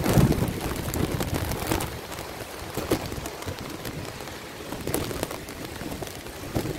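Rain falling, with many sharp taps of drops striking close to the microphone and a low rumbling gust on the microphone just at the start.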